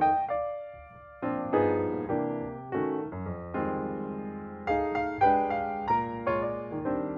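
Background music played on piano: a melody of struck notes that ring and fade, with a short pause about a second in.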